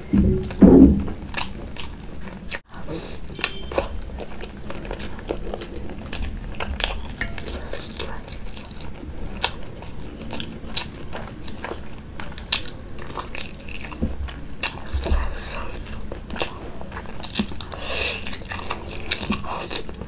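Close-miked mouth sounds of eating: biting into and chewing soup-soaked boiled eggs, with many small wet clicks and smacks. The loudest mouth sound comes about a second in.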